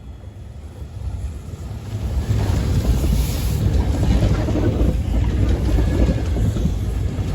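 ED4MKU electric multiple unit train coming close, its low rumble and rush of noise growing loud over about two seconds and then holding steady.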